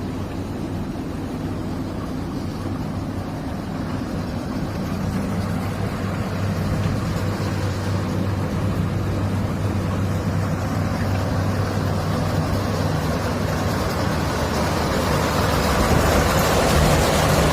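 Water-well drilling rig's engine running steadily with a low hum and a noisy machinery wash that slowly grows louder.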